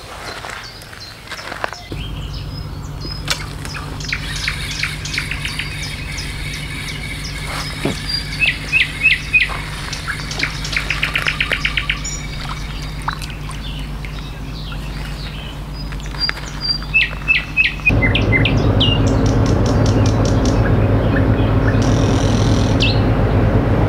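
Songbirds chirping and calling at dawn, with short repeated chirps and a rapid trill about eleven seconds in. Underneath runs a steady low hum that gets suddenly louder about eighteen seconds in.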